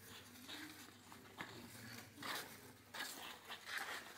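Faint rustling and handling noise in short spells, the clearest a little past halfway and near the end, over low murmured voices.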